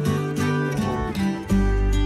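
Background music led by plucked guitar. About one and a half seconds in, a deep steady bass comes in and the music gets louder.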